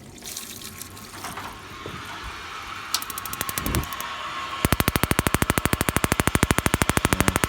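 Instant gas water heater trying to light: a rush of noise builds, then its electronic igniter sparks in a fast, regular clicking of about a dozen clicks a second that starts about four and a half seconds in. The heater is one that, according to the owner, fails to relight after being shut off and left to rest, giving only a brief plume of fire before going out.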